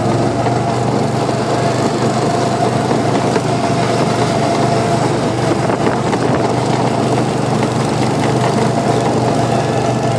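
Go-kart's small engine running steadily at speed, a constant drone heard from the driver's seat.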